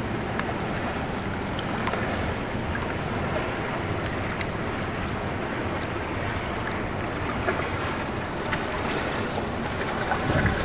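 Diesel engine of a coaster (small coastal cargo ship) passing close by, a steady low drone, mixed with wind on the microphone and water lapping.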